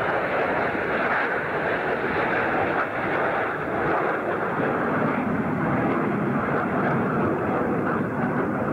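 Steady jet noise from the Red Arrows' BAE Hawk jet trainers with their Adour turbofans flying over in formation. The noise is even and unbroken, with little treble.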